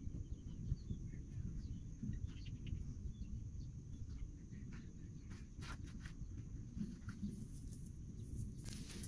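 A low rumble of wind on the microphone, with a steady faint high tone throughout. From about five seconds in come light clicks and rattles as the cast net's lead-weighted bottom chain is handled, thickest near the end.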